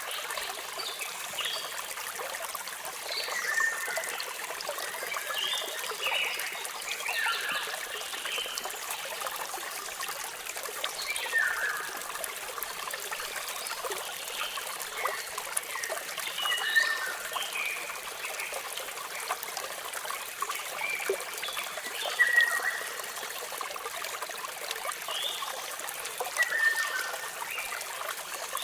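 Water running steadily, with birds chirping over it: short calls that drop in pitch, one every second or two.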